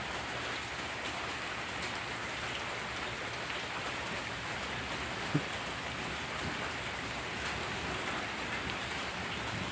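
Steady rain falling, an even hiss, with one brief low sound about five seconds in.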